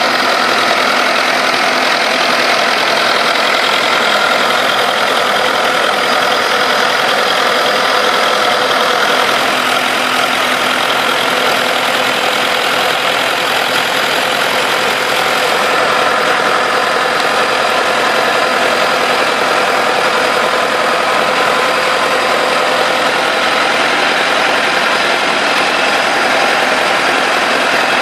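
Turbocharged LTZ T-40AM tractor's four-cylinder diesel engine idling steadily.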